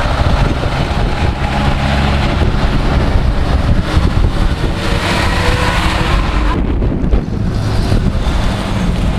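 Engines of old fire engines and an ambulance van driving slowly past one after another, with wind on the microphone. The sound changes abruptly about six and a half seconds in.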